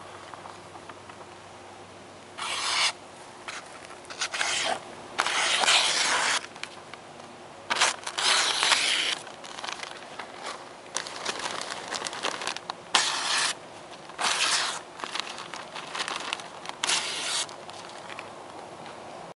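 Sharp knife slicing through a sheet of thin printed paper, a test of the edge: about nine separate bursts of crisp paper tearing and rustling, each under a second and a half long.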